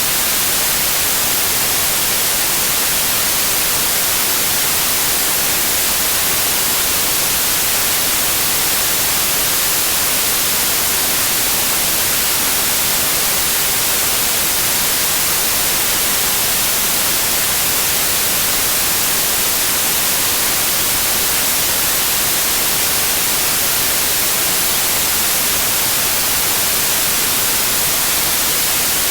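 Steady white noise: an even, unchanging hiss weighted toward the high end.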